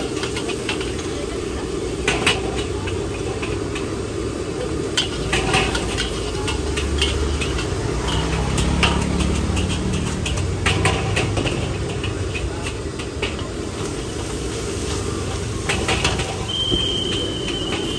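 Metal cooking utensils clanking against pans, sharp strikes every second or two over a steady low street hum. A low engine rumble swells midway, and a high steady tone sounds near the end.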